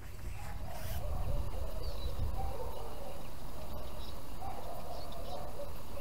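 Steady low rumble of wind on the microphone, with a few faint, short chirps from small birds.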